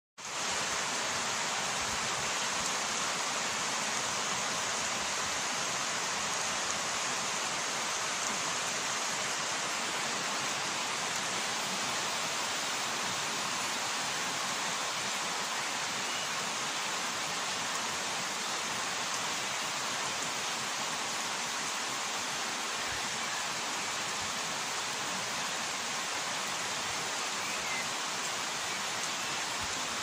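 Steady, even hiss of rain falling on trees and grass.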